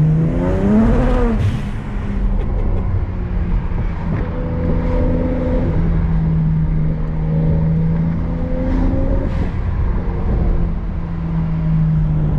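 Car engine running at a steady speed while driving, a constant drone over low road rumble, with a brief rise and fall in pitch near the start.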